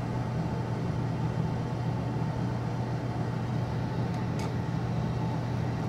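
Laminar flow hood's blower running with a steady low hum. One faint tick about four and a half seconds in.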